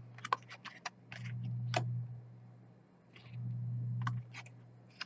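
Tarot cards being handled on a table: a scatter of light clicks and taps as cards are picked up, slid and laid down. A low steady hum comes in twice, briefly.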